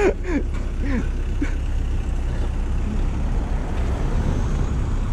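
A road vehicle running, a steady low rumble with road noise throughout. A few short voice sounds fall in the first second and a half.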